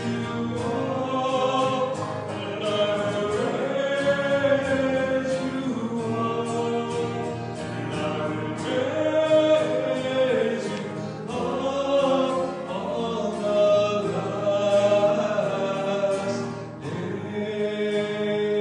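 Background music: a slow hymn sung by voices, in choir style, with sustained instrumental accompaniment beneath.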